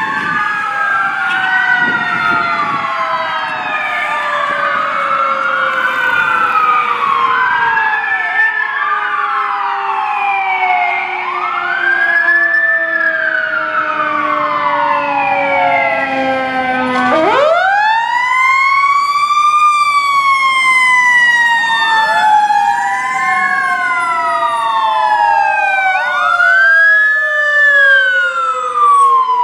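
Fire apparatus sirens: several overlapping wail sirens rising and falling every couple of seconds, with a slower siren tone that falls steadily and then shoots sharply back up about seventeen seconds in, as fire engines approach and pass.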